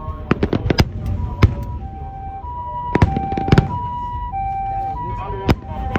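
Aerial fireworks bursting: a quick string of sharp bangs near the start, then single loud bangs spread through the rest. Over them, from about a second in, a two-tone hi-lo emergency siren alternates steadily between a higher and a lower note about every half second.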